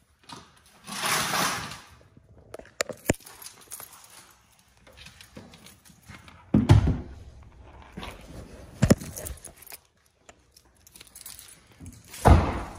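Handling noise of someone getting out of a car in a garage: a rustle about a second in, a few sharp clicks, and three heavy thumps spread through the rest, the loudest near the end.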